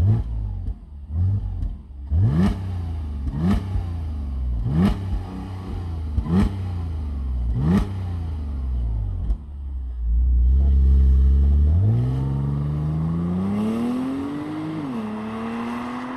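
Audi 3.0 TFSI supercharged V6 on its stock exhaust, blipped about six times in quick succession, each rev rising sharply and dropping back to idle. After a few seconds of idle the car pulls away, revs climbing, dipping once at an upshift and climbing again as it fades into the distance.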